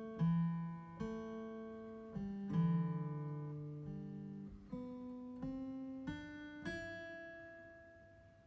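Background music played on a keyboard with a plucked, guitar-like tone: a slow series of struck chords, each decaying before the next, dying away near the end.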